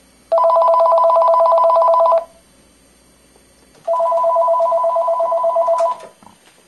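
Panasonic cordless phone ringing twice: an electronic warbling trill of two rapidly alternating tones, each ring about two seconds long, with a pause of about a second and a half between them.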